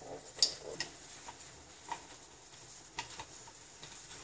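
Mustard seeds popping in hot sesame oil: scattered, irregular sharp pops over a faint sizzle, as the seeds start to splutter.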